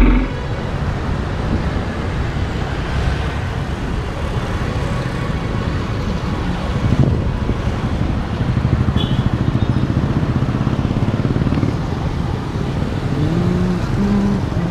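Steady road traffic noise, a low rumble of motor vehicles, with a single short knock about seven seconds in.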